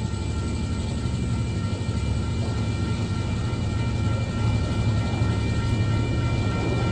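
Loaded log wagons of a freight train rolling past, a steady rumble of wheels on the rails with a thin, steady high ringing over it.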